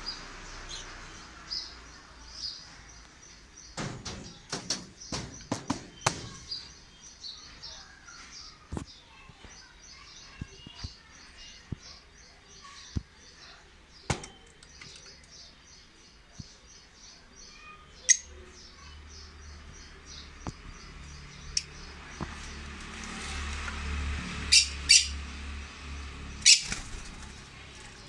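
Small caged parrots, masked lovebirds and conures, chirping and twittering in a steady stream of short high chirps, with a cluster of sharp clicks about four seconds in and a few loud, shrill calls near the end.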